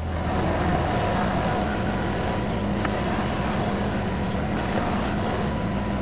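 TYM 2515H compact tractor's diesel engine running steadily at a constant speed.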